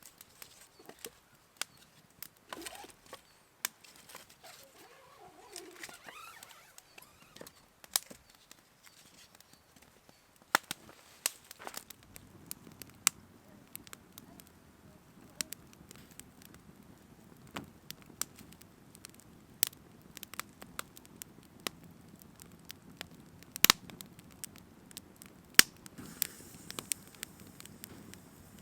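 Campfire crackling, with sharp irregular pops and snaps; a low steady rushing joins in about twelve seconds in.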